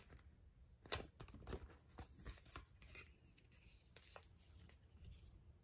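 Faint rustling of a folded paper cassette insert being handled and folded back up, with a few light clicks, the sharpest about a second in.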